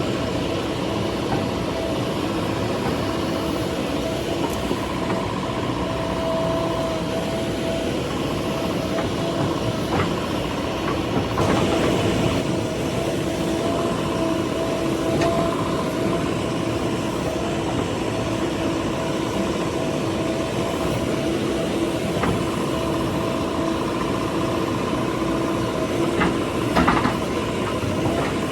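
JCB 3DX backhoe loader's diesel engine running steadily at work, with a steady hum and a few brief knocks, about eleven seconds in and again near the end.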